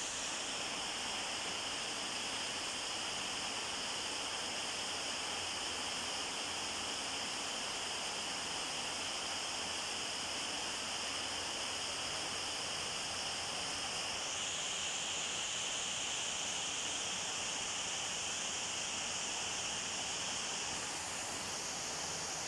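Steady, even hiss of night-time background noise, with no cat calls; its higher part changes pitch slightly about two-thirds of the way through.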